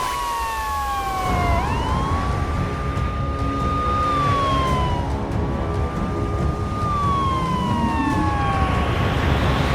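An emergency-vehicle siren wails in a slow rise and fall, holding a high note before sliding down and back up every few seconds, over a low vehicle rumble.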